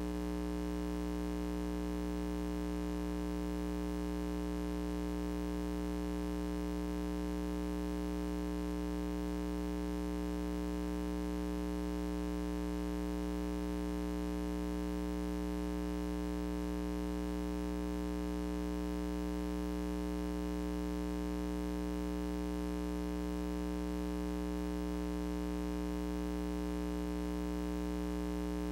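Steady, unchanging electrical mains hum with a buzzy stack of overtones; nothing else is heard over it.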